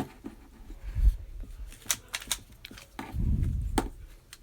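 Rubik's cube being turned by hand: irregular sharp plastic clicks as the layers snap round, with a couple of low dull thumps from handling.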